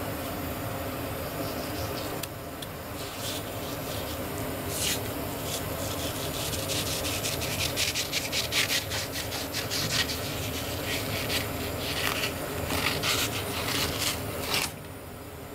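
Long kitchen knife scraping and rasping against fish skin and a plastic cutting board as a grouper fillet is skinned, in a run of short strokes over a steady background hum. The sound drops suddenly near the end.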